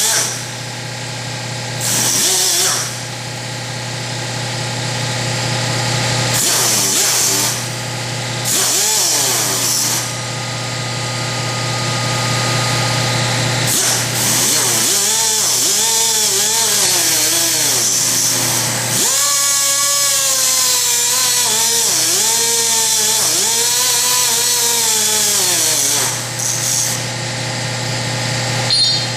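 Angle grinder with a cutoff wheel cutting steel, in several short bursts and then one long cut through most of the second half, its pitch sagging and recovering as the wheel bites. Underneath, a large electric air compressor runs with a steady hum, refilling its tanks.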